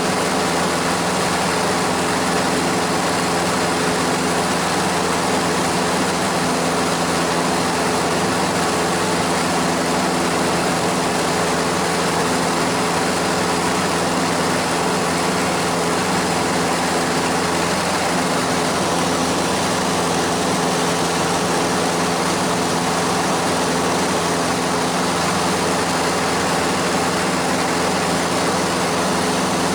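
Airplane engine and propeller running steadily in flight, heard inside the cabin: a constant drone of several held tones over a wide rushing hiss.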